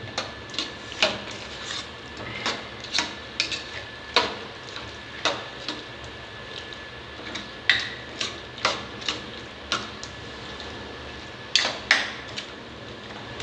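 Metal spatula clinking and scraping against a kadhai as chicken pieces are stirred and folded into a thick, dry masala, in irregular knocks about one or two a second.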